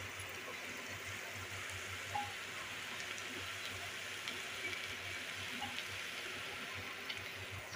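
Cabbage and potato sabzi sizzling steadily in a hot pan, with a few faint ticks.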